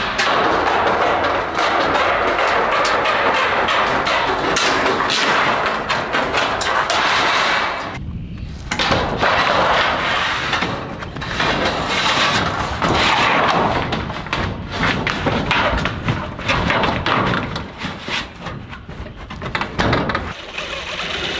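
Sheet-metal roofing scraping and rattling as a new galvanized steel panel is pushed and worked under old rusted metal roof sheets, with knocks and thumps, and a short break about eight seconds in.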